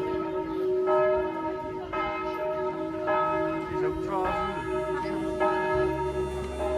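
Church bell ringing, struck about once a second, each stroke ringing on into the next. Music comes in near the end.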